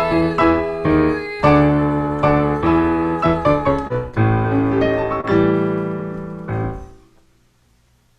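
Piano playing a run of notes and chords, ending on a held chord that dies away about seven seconds in.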